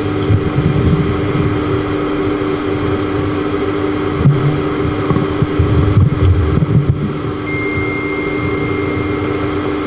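Steady hum and low rumble of an electric pedestal fan, with a constant low buzzing tone under it. A faint thin high tone comes in about seven and a half seconds in.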